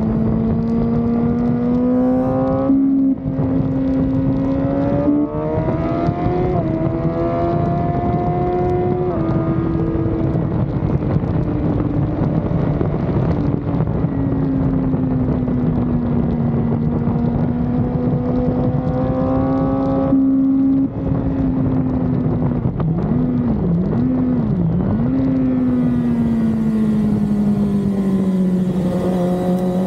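Sport motorcycle's engine running hard on a racetrack, heard from on the bike: the revs climb and drop with two quick gear shifts about three and five seconds in, then rise and fall through the corners, wavering up and down a few times around twenty-three seconds in, over steady wind rush.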